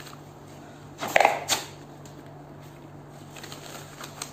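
Rubber gloves being pulled on over one another: a short burst of rubber rubbing and stretching about a second in that ends in a sharp snap, and a small click near the end, over a steady low hum.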